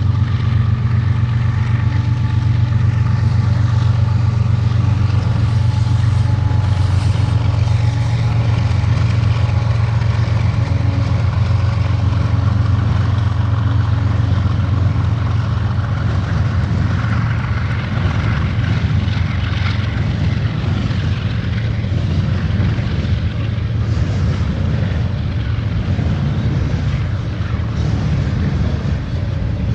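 Diesel locomotive engine running loud, a steady low drone with a fast, even pulse. From about halfway the drone grows rougher and a broader rolling noise joins it.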